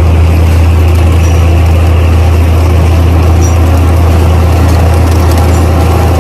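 Loud, steady engine idling, with an unchanging low hum: a forklift engine sound effect.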